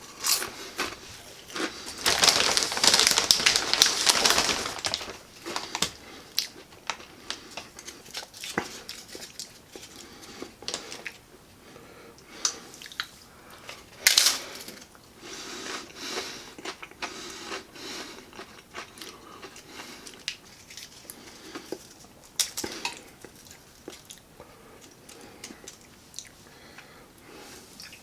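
Tortilla chips being crunched and chewed: a loud stretch of crunching a couple of seconds in, then quieter chewing with scattered crisp clicks and a few short crunches.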